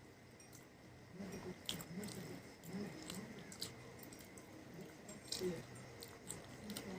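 A person chewing food, with wet mouth smacks and sharp clicks about once a second.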